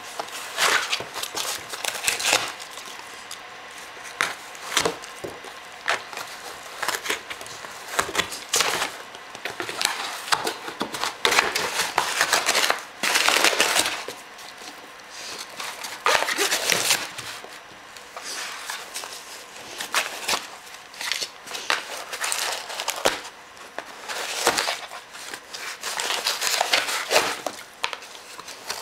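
A dog tearing and chewing cardboard and a paper envelope: irregular crinkling, ripping and crunching of paper, in busy stretches with short lulls.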